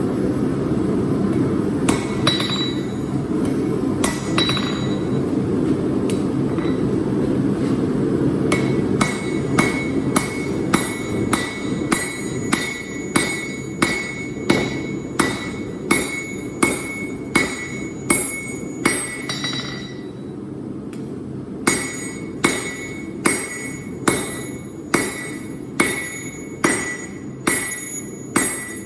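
Hand hammer striking steel on an anvil, forging Damascus, with each blow ringing. The blows come steadily about one and a half a second, with a brief pause partway through, over a steady rushing noise.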